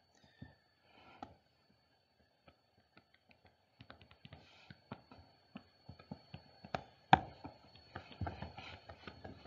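Faint, irregular taps and clicks of a stylus on a tablet screen as handwritten annotations are erased. After the first few quiet seconds the taps come more often from about four seconds in, with one sharper click around seven seconds.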